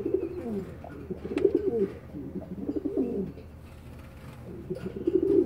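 Homing pigeon cooing in four low phrases, each sliding down in pitch, with a pause of about a second and a half before the last. This is the courtship cooing of a pigeon cock paired with a hen.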